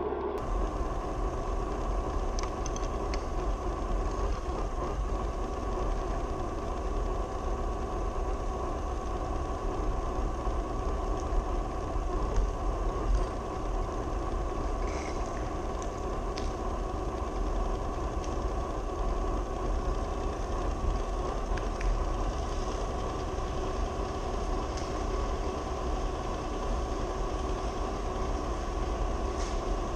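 Traxxas TRX-4 RC crawler's electric motor and geared drivetrain running steadily as the truck drives, a constant whine over a low rumble, with a few light knocks around halfway.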